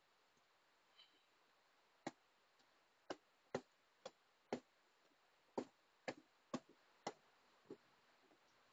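Footsteps climbing concrete stairs: about ten sharp steps, roughly two a second, starting about two seconds in, against near silence.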